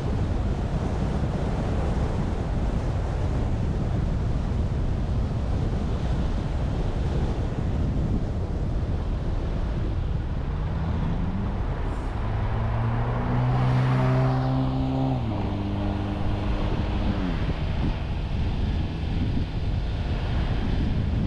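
Steady wind and road noise from a moving car, with wind buffeting the microphone. About two-thirds of the way through, another vehicle passes close by: its engine note swells, then falls in pitch as it goes past.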